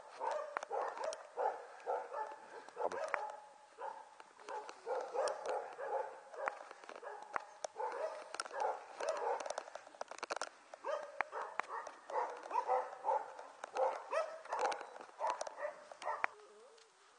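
Border Collie puppies about six weeks old yipping and whining in short calls, one after another, with a few faint clicks; the calls die away near the end.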